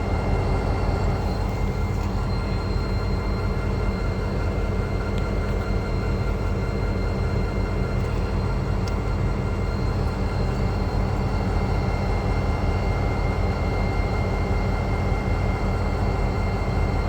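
Diesel yard switcher locomotive idling while stopped: a steady low engine rumble with faint steady tones above it.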